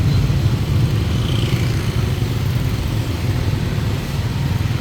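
Steady low engine rumble from a motor vehicle running nearby, most likely a motorbike.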